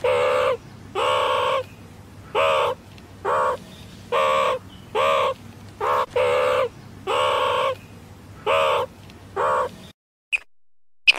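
Meerkats calling: eleven short, repeated calls, each well under a second long and spaced unevenly. The calls stop near the end, and a couple of faint clicks follow.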